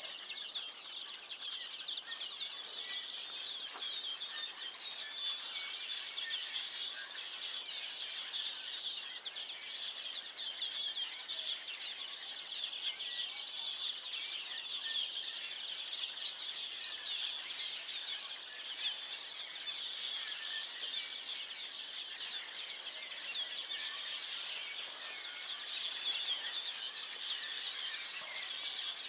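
A large flock of small birds gathered in oak trees, calling all at once: a dense, unbroken chatter of many short, high chirps.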